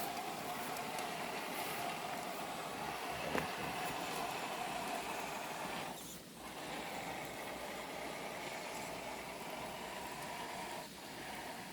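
Electric motor and drivetrain of an Absima Yucatan RC crawler running with a steady whine, cutting out briefly about six seconds in and again near the end. There is a single sharp click about three and a half seconds in.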